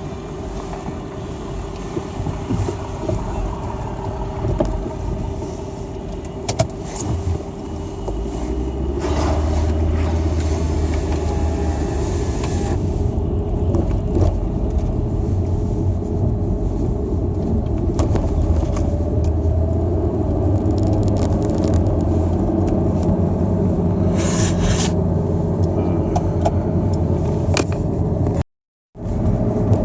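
A car driving on the road, a steady engine and road rumble that gets louder about eight seconds in as it picks up speed. The sound cuts out completely for a moment near the end.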